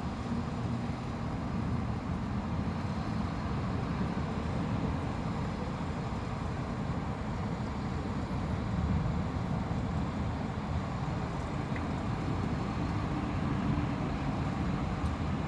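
Steady low rumbling ambience of a city thunderstorm, even in level, with no distinct thunderclap.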